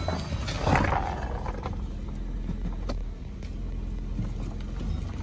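2013 Ford Taurus engine idling, heard from inside the cabin as a steady low hum. There is a short rustle of handling about a second in.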